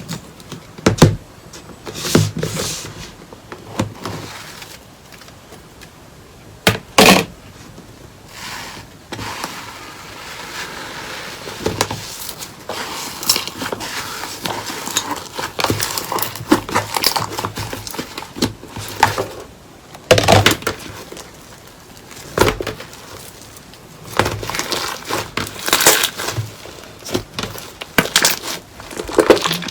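Slime being pressed and worked by hand, giving irregular sharp pops and clicks over stretches of soft crackling. The strongest pops come about a second in, around seven seconds in and around twenty seconds in.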